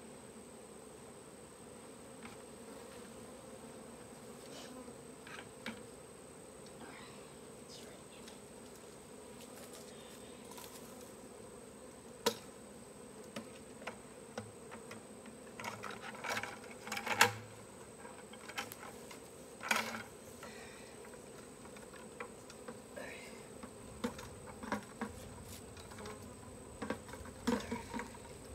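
Honeybee swarm buzzing as a steady hum, with scattered knocks and clatter joining in about halfway through; the sharpest knock comes a little past the middle.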